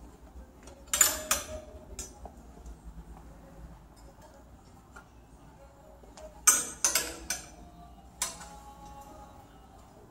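Metal hanger hooks clinking against a metal clothes rail as garments are pushed along it: a few sharp clinks about a second in, then a quicker run of four or five about six and a half to eight seconds in.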